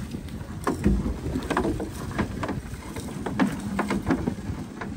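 Small open fishing boat (panga) on the sea: a steady low rumble with irregular knocks and slaps against the hull.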